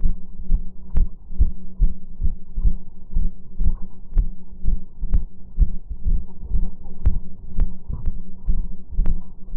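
Muffled, regular thuds about two a second, the footsteps of someone walking, over a steady low hum.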